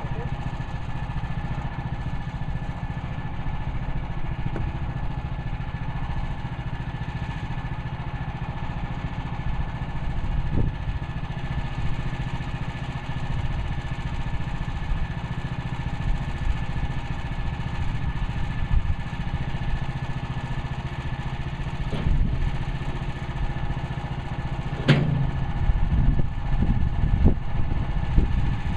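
Portable bandsaw sawmill's engine running steadily, with a few sharp knocks about two-thirds of the way through and uneven clattering knocks near the end.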